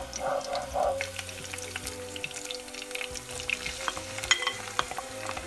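Sliced garlic crackling and sizzling in hot sunflower oil in a pot as it is stirred with a wooden spoon. Near the end, diced tomatoes are tipped in, with two sharp knocks.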